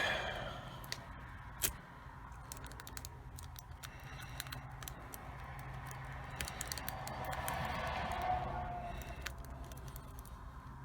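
A lock pick being worked against the pins of a cheap 40 mm five-pin padlock under a tension wrench: scattered light metallic clicks, with a longer stretch of scraping from about six to nine seconds in.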